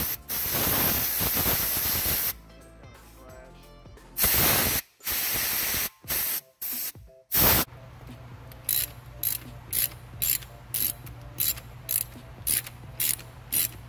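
Compressed-air blow gun hissing in several blasts, the longest about two seconds, blowing debris off the EGR valve mounting on a Cummins diesel engine. From about the middle on, a hand ratchet clicks in a steady rhythm, about two strokes a second, as a bolt is turned.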